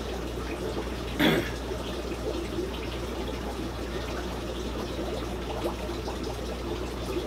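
Steady trickling of water from the aquarium filtration in a fish room, over a constant low hum, with one brief louder sound about a second in.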